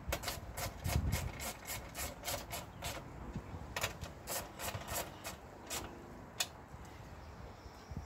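A quick run of light metallic clicks and rasps from a hand tool working a bolt in, several a second, thinning out after about three seconds.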